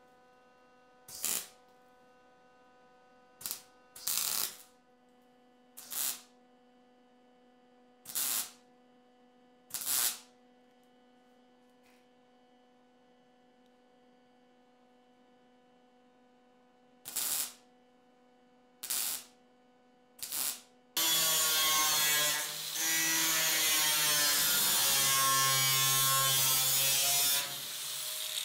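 A MIG welder laying nine short tack welds of about half a second each on sheet steel, each one a brief crackle, with a steady hum between them. About 21 seconds in, an angle grinder starts up and grinds for about six seconds, then winds down.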